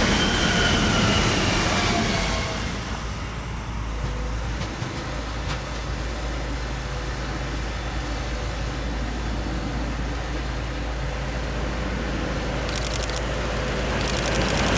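A train passing and moving away, a whine from its drive falling in pitch over the first two seconds before settling into a steady rumble. Near the end the rumble of the next train grows louder as it approaches.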